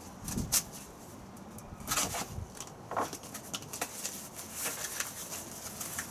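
A box being opened and its contents handled: rustling with a run of sharp knocks and clicks, the loudest about half a second in.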